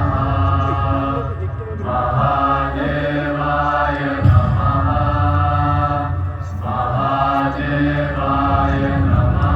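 Chanting voices in a show soundtrack, sung in phrases that repeat about every two seconds over a deep low drone.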